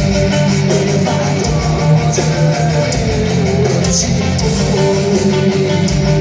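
A metal band playing live through a concert PA, heard from the audience: distorted electric guitars over bass and drums.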